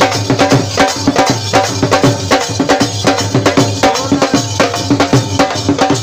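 Dhol drums played live in a fast, steady rhythm, loud, with sharp strokes on the drumheads.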